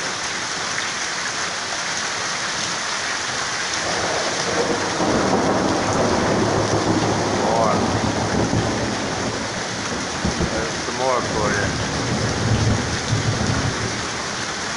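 Heavy rain falling steadily, with a long low rumble of thunder coming in about four seconds in and rolling on.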